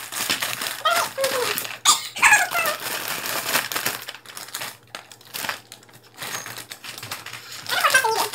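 Foil snack bags crinkling as chips are shaken out of them, with the chips clattering into clear plastic bowls in irregular bursts. It is quieter for a few seconds in the middle.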